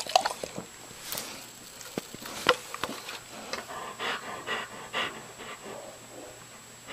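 A dog panting in quick, even breaths, about two a second, with a few sharp clicks in the first half.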